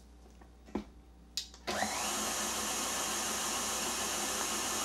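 KitchenAid tilt-head stand mixer with its wire whip, whipping cream cheese frosting. After two light clicks, the motor starts about a second and a half in with a short rising whine and then runs at a steady speed.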